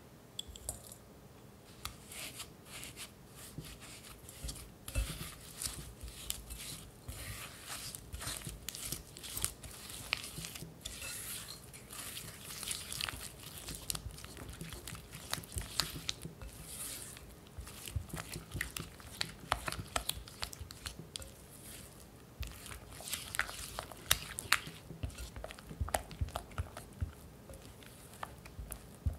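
Silicone spatula mashing and scraping soft cream cheese mixed with granulated sugar against a glass mixing bowl: irregular, gritty squishing and scraping strokes.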